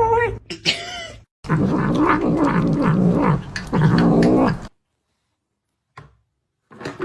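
Cat meowing, then a drawn-out low, wavering yowl that breaks into several pieces and cuts off abruptly about two-thirds of the way through.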